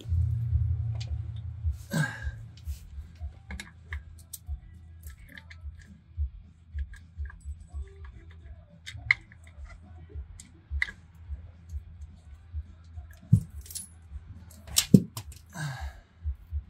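Scattered metallic clicks, clinks and light knocks of a transmission mount, bolts and hand tools being handled as the mount is fitted back into the car, with a few louder knocks near the end.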